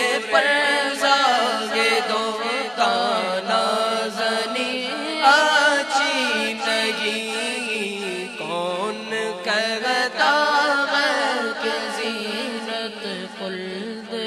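Unaccompanied Urdu naat recitation: boys' voices chanting into microphones in long, sliding, melismatic held notes, with no instruments.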